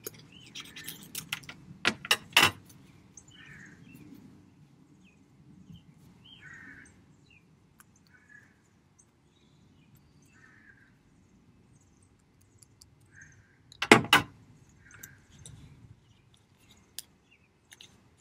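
Scissors snipping paper and paper handling in the first couple of seconds, then quieter folding and pressing of paper, with faint bird chirps every few seconds. A single sharp knock about 14 seconds in is the loudest sound.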